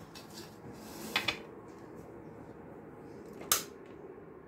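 Light handling of a china plate of crumbs, quiet apart from two short clicks, one about a second in and a sharper one about three and a half seconds in.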